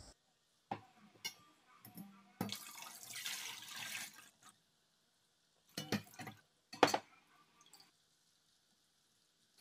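A wet cloth pouch of soaked chili powder, garlic and ginger being squeezed and kneaded in a steel bowl of kimchi brine: liquid squelching, splashing and dripping back into the bowl, with two sharper knocks or splashes around the middle, then quiet near the end.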